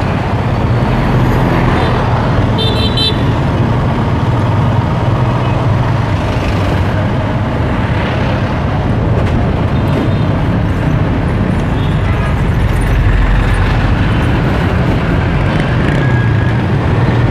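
Busy road traffic, engines running steadily, with a short horn toot about three seconds in.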